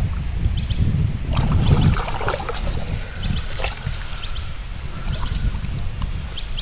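Muddy paddy water sloshing and trickling as a person wades and moves about in it, with scattered small knocks and splashes over a low rumble.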